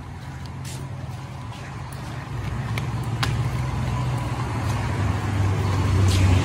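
A car coming up along the street from behind and passing, its engine and tyre noise growing steadily louder toward the end, with a few light clicks over it.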